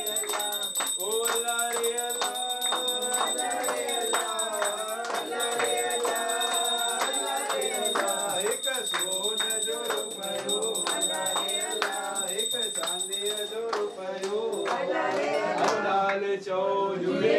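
Music: a melody over a steady beat, with jingling percussion.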